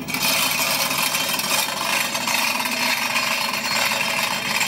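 A small electric hoist running steadily, its motor and gearing giving an even, fast clatter.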